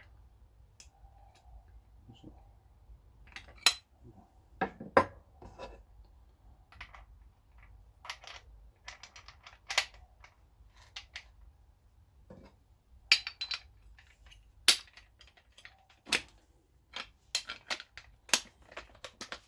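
Irregular metallic clicks and clanks of angle-grinder parts and hand tools being handled and fitted together, with a few sharper knocks standing out.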